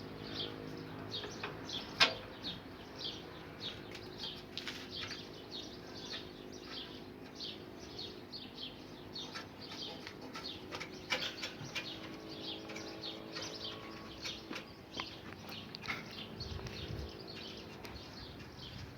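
Small birds chirping over and over in short, quick calls, with a faint steady hum beneath. A few sharp clicks break in, with one loud knock about two seconds in.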